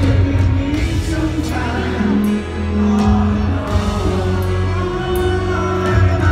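Live rock band playing a piano-led power ballad at concert volume: grand piano, bass and drums, with a male voice singing over them.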